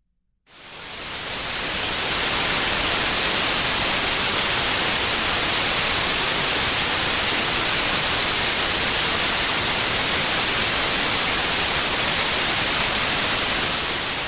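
White noise of the kind heard from an untuned analog TV: a steady, even hiss across the whole range, strongest in the highs, fading in about half a second in.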